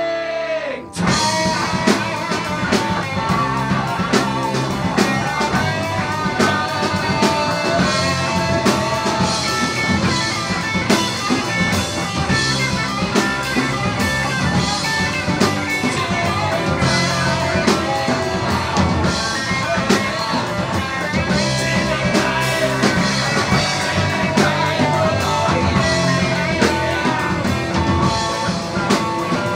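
Rock music with guitar and drums and a steady beat, starting about a second in.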